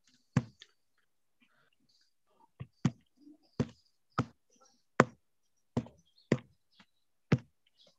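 Single sharp taps of typing on a smartphone's on-screen keyboard, about nine clicks at irregular intervals.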